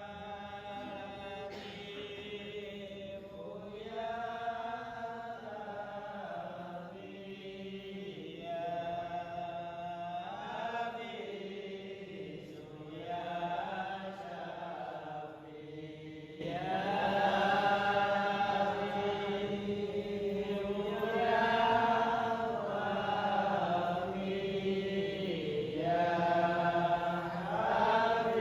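Unaccompanied melodic vocal chanting in long phrases that rise and fall, growing louder about sixteen seconds in.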